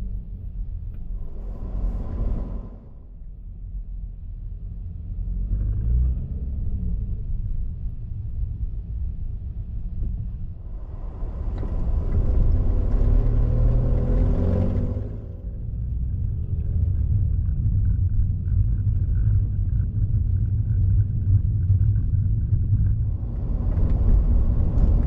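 Low, steady rumble of a car driving, heard from inside the cabin: engine and tyre noise. It swells louder about two seconds in, again for a few seconds in the middle with a pitch that rises and falls, and once more near the end.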